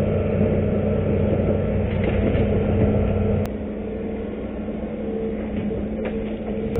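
Hitachi hydraulic excavator's diesel engine running steadily with a low hum. A sharp click comes about halfway through, and the sound then continues quieter.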